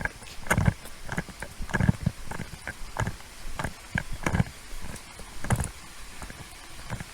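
Footsteps of someone walking at a steady pace, about one step every half second or so, each with a dull knock. The steps thin out near the end.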